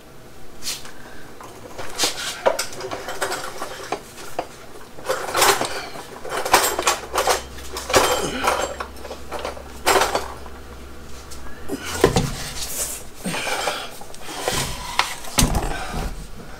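Irregular metallic clanks, knocks and scraping as a heavy Tremec TKO 600 transmission is manhandled up under a car toward its transmission tunnel.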